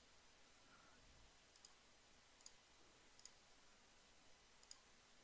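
Four faint computer-mouse clicks, spaced about a second apart, over near silence.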